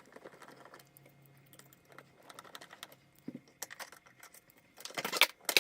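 Light clicking and tapping of a screwdriver and hard plastic parts being handled while screws are fitted into the pressure washer's plastic body, with a louder clatter of a few sharp knocks near the end.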